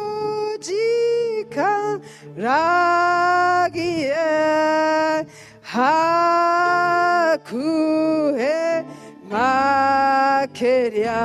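A woman singing a slow, drawn-out worship song solo into a microphone, long held notes in phrases of one to two seconds with short breaks between, over a steady held tone underneath.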